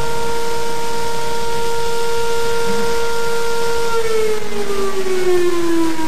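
Warning siren sounding one loud, steady tone, then falling steadily in pitch over the last two seconds.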